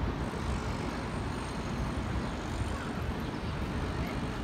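Steady city street noise: a low, even rumble of traffic.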